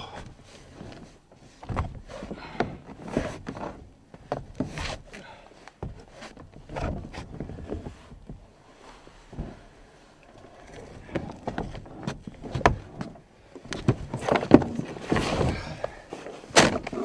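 Irregular knocks, scrapes and rustling as a man climbs down from a pickup truck bed and then hauls a dead whitetail buck up into it. The loudest thumps come near the end as the carcass is lifted and set onto the bed.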